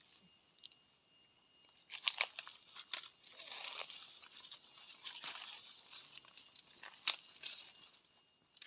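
Dry leaves and brush crunching and rustling underfoot as someone moves through forest undergrowth, with a few sharp cracks, the loudest about seven seconds in. Crickets chirp faintly behind.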